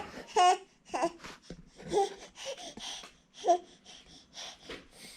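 A baby babbling, a string of short vocal sounds, the loudest about half a second in and again around two and three and a half seconds.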